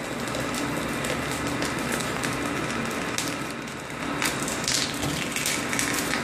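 Corn puff extruder running: a faint steady machine hum under a continuous crackling hiss as hot, compressed corn meal puffs out of the heated die as a tube.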